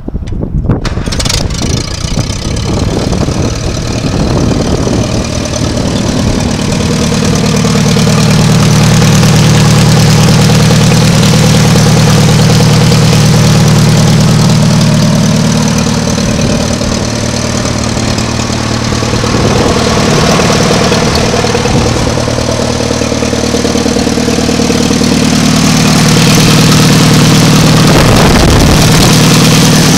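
Allis-Chalmers WD45's four-cylinder gasoline engine starting right at the beginning and then running at a steady idle, its loudness swelling and easing a little.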